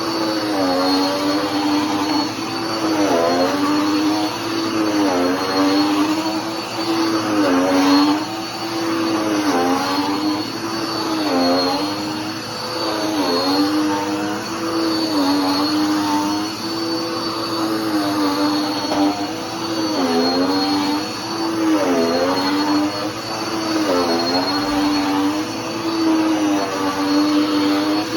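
Dirt Devil PowerMax Pet upright vacuum cleaner running, a steady motor hum with a thin high whine above it. Its pitch dips and recovers every second or two while vacuuming.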